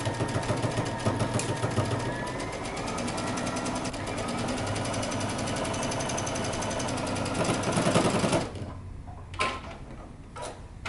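Computerized sewing machine stitching a seam at a steady, fast pace, its needle strokes running in an even rapid rhythm as it sews a narrow zigzag stitch through knit jersey. It stops about eight seconds in, and a few light clicks follow.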